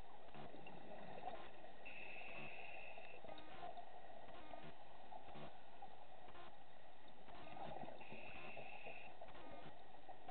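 Muffled underwater sound of scuba divers breathing through their regulators. A thin, steady hiss-tone lasts about a second, twice, some six seconds apart, over continuous bubbling with small clicks.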